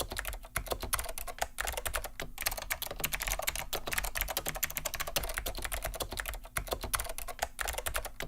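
Fast typing on a mechanical keyboard with Alps switches: a dense run of sharp key clicks broken by a few short pauses.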